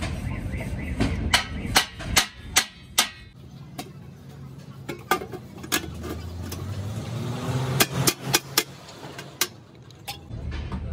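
Rolled thin steel sheet for a truck silencer shell knocking and clanking as its seam is worked, with a dozen or so sharp metallic taps at irregular spacing.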